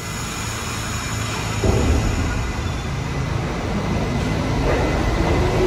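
New York City subway train running on the station track, the rumble suddenly louder about a couple of seconds in and building slightly after that.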